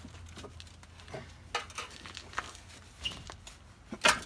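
Scattered metallic clicks and knocks of a breaker bar and 19 mm socket worked on a stuck radiator support bracket bolt, with one louder clank near the end.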